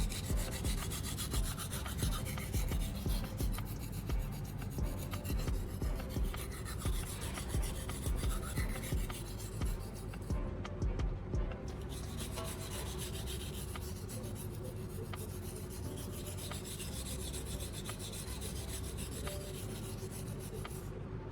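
A steel knife blade stroked back and forth across a wet 1000-grit whetstone coated in a baking soda slurry, a gritty scraping at about two strokes a second. The strokes give way about halfway through to a steadier, even sound.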